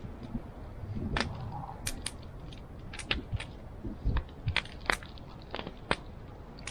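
Wood campfire crackling: scattered, irregular sharp pops and snaps over a low hiss.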